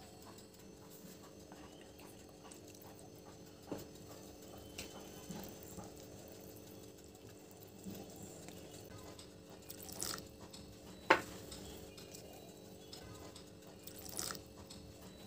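Metal spoon stirring thick cake batter in a glass bowl: soft wet squelching, broken by a few sharp clinks of the spoon against the glass, the loudest about eleven seconds in. A faint steady hum runs underneath.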